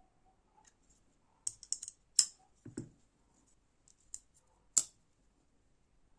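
Folding knife being handled, a string of sharp clicks with a duller knock among them, then two more single clicks, the last loud.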